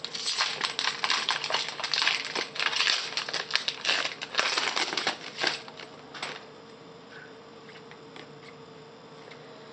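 Foil trading-card pack wrapper crinkling and tearing as the pack is opened: a dense run of rustles and sharp crackles that stops about six seconds in. Then only a few faint clicks as the cards are handled.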